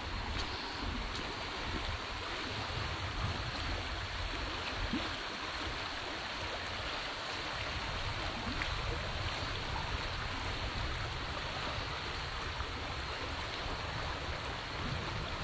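Steady rushing of a stream's flowing water, with wind buffeting the microphone in a low, uneven rumble.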